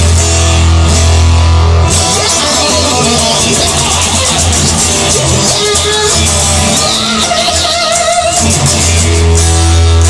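Rock song: electric guitar over a strong bass and a drum kit.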